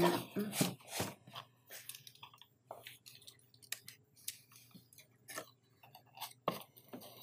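Handling noise of a camera in its black wrapping being pulled out of a cardboard box: irregular rustling, crinkling and soft scrapes of wrapping and cardboard flaps, a little louder in the first second and again near the end.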